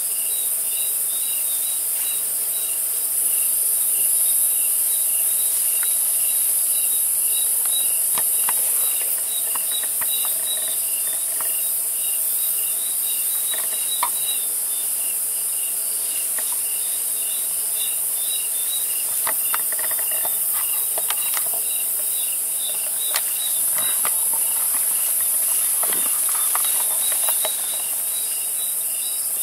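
Night insect chorus: a steady high-pitched shrill, with a fainter regular chirp about twice a second beneath it. Scattered soft rustles and clicks come and go through the middle and later part.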